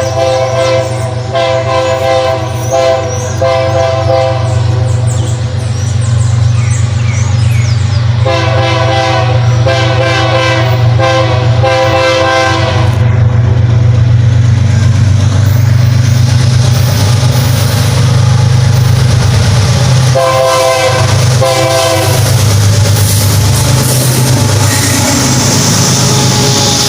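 GE ES44ACi diesel locomotive under power, its GEVO-12 engine making a steady low drone. Its multi-tone air horn is sounded in rhythmic groups of short blasts, a Christmas honking pattern: one group at the start, a longer, faster run about eight seconds in, and a short group around twenty seconds. From about halfway through, the rolling noise of the passing train builds up under the engine.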